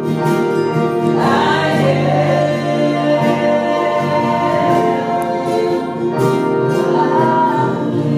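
A worship band playing and singing a gospel song, with voices over keyboard and guitar accompaniment and long held notes.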